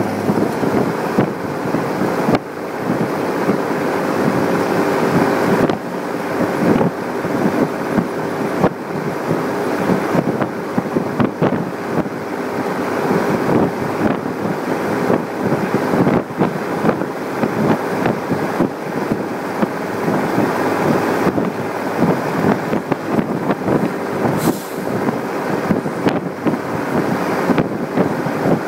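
MB-trac 1100 turbo tractor under way, heard from inside the cab: a steady diesel drone with dense rattling and clattering of the cab over it.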